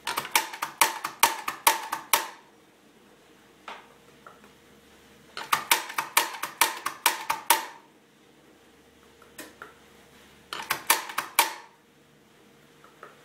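Doser coffee grinder's dosing lever being flicked repeatedly to empty the dosage chamber, the lever and chamber vanes clacking in three quick runs of about two seconds each, the last run shorter.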